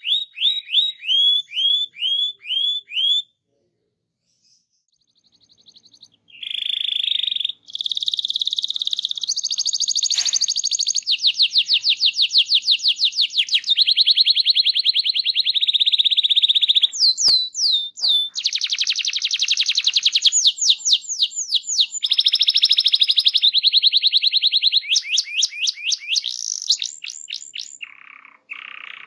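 Domestic canary singing a rolling song. It opens with a short run of quick falling whistled notes, breaks off for about three seconds, then continues in long, very fast trills and rolls that switch from one trill to the next.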